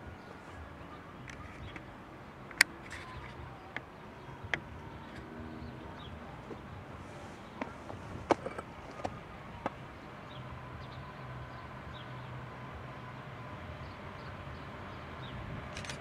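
Electric locomotive and container freight train approaching from a distance: a faint low rumble and a steady whine that grow slightly louder from about two-thirds through. Scattered sharp clicks and short bird chirps stand out above it, the loudest about two and a half seconds in and midway.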